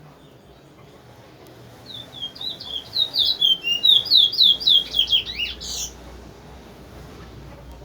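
A caged towa-towa seed finch singing one fast song phrase of quick, slurred whistled notes. The phrase starts about two seconds in, grows louder through the middle and ends abruptly on a higher note.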